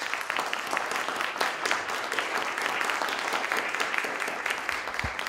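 Audience applauding steadily, many people clapping at once at the end of a talk.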